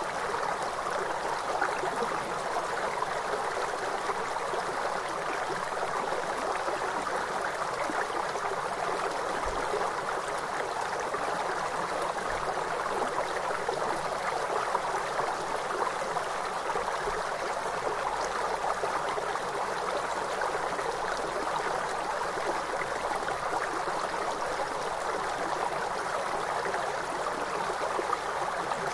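Flowing river water: a steady, even rush that holds the same level throughout.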